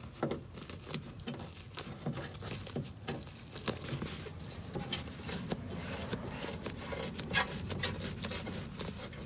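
Gloved hands peeling soft, sticky door-sealant glue away from a car door, with irregular rustles, rubs and small tacky clicks. The glue is warm and coming off easily.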